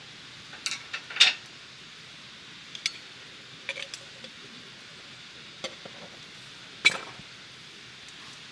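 Cookware and utensils clinking and knocking together: a series of irregular sharp clinks, loudest about a second in and again near the end, over a steady background hiss.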